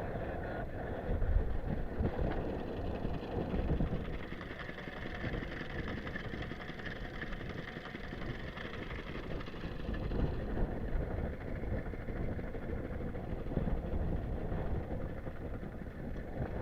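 Fishing boat's engine running steadily, with gusts of strong wind buffeting the microphone.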